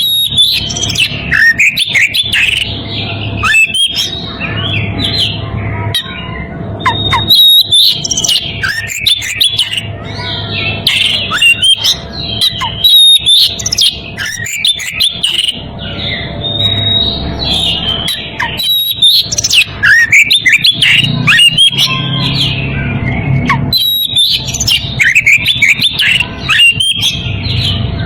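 Oriental magpie-robin (kacer) in breeding condition singing without a break: a fast, varied run of whistled phrases, sliding notes and sharp chattering calls, the song it uses to challenge a rival.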